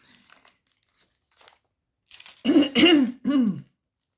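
A woman clearing her throat with three short, forceful coughs about two and a half seconds in, after a few faint handling clicks.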